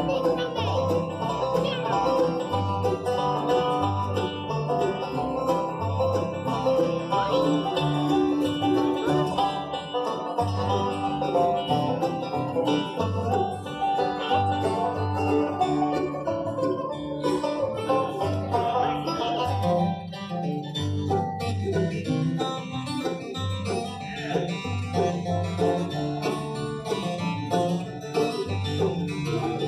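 Live bluegrass band playing: banjo and acoustic guitars picking over an upright bass that keeps a steady alternating beat.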